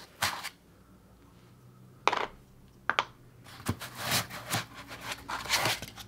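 Packaging being handled: a foam insert worked loose and lifted out of a wooden birdhouse, with a few sharp knocks and scrapes that grow busier in the second half.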